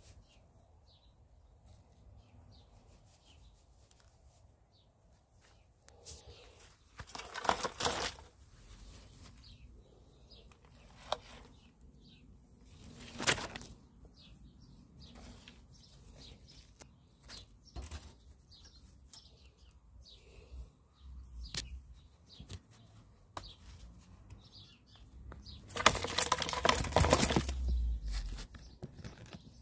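A magpie struggling in a wire-mesh cage trap, flapping its wings in short bursts: one about seven seconds in, a brief one about thirteen seconds in, and a longer bout near the end.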